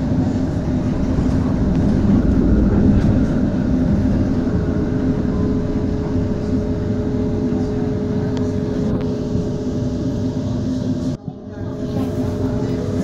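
HTM GTL8 tram running, heard from inside the car: a steady rumble with humming tones, one of which joins about four seconds in. The sound briefly cuts out about eleven seconds in.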